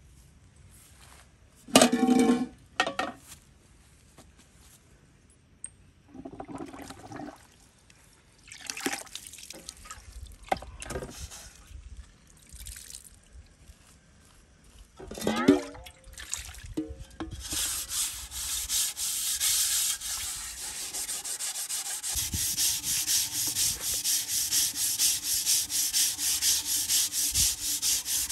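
Rapid, even scraping or rubbing strokes, starting about two-thirds of the way in and keeping on steadily, after a few short scattered sounds earlier.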